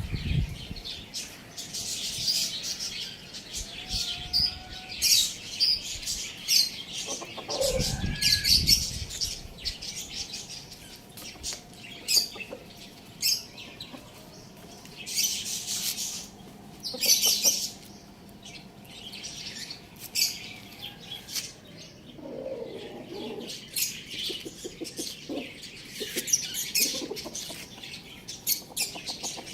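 Many small birds chirping constantly with short high calls, with bursts of wing flapping now and then.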